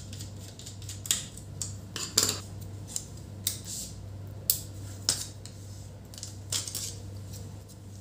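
Small screwdriver and plastic pry tool working at a laptop's battery screws and battery connector: a scattered run of sharp ticks and short scrapes, with a low steady hum underneath.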